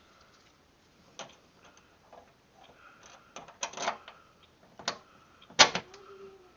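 Steel bolts and hand tools clinking and clanking as a new spindle is bolted onto a riding-mower deck: a few scattered sharp metallic clicks, with the loudest clank about two-thirds of the way through ringing briefly.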